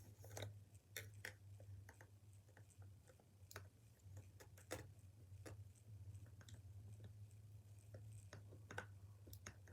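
Faint, irregular clicks and taps of small plastic parts of a Nerf Double Strike blaster being handled during disassembly, over a low steady hum.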